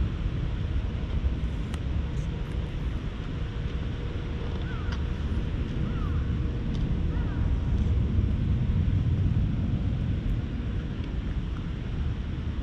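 Wind rumbling on a GoPro's microphone, with a few faint, short chirps now and then.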